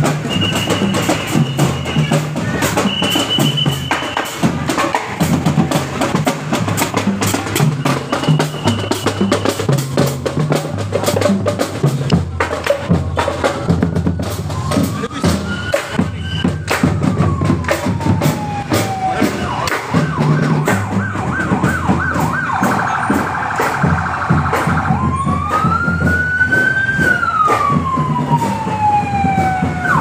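Music with a repeating bass beat and clattering percussion, with a few short high steady tones in the first half. In the second half an odong-odong bus's electronic siren wails, rising and falling slowly twice, with a fast warbling yelp between the two wails.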